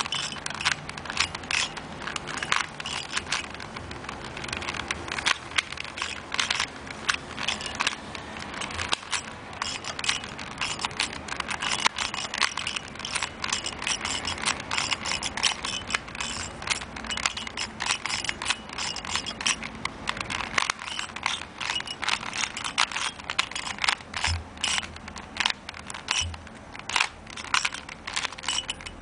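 Plastic 3x3 Rubik's Cube being turned rapidly during a speed solve: a dense, continuous run of clicks and clacks as the layers snap round. The cube is stiff, which the solver calls so tight.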